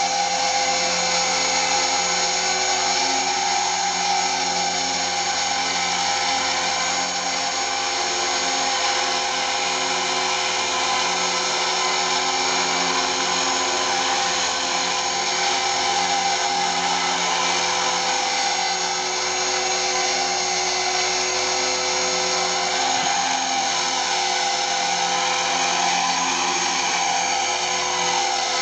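KDS 450 electric RC helicopter hovering: a steady high whine from the electric motor and drive gears, with the rotor's hum, holding an even pitch with small wavers.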